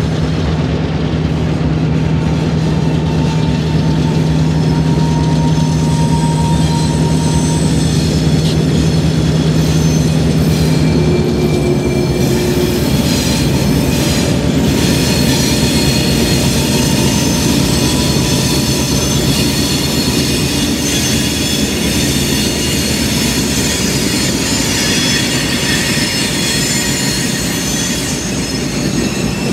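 Diesel freight train led by an EMD GP38-2 locomotive passing close by. The locomotives' steady engine hum drops in pitch about eleven seconds in as the lead unit goes past. Then the covered hopper cars roll by with wheel squeal and clicking over the rail joints.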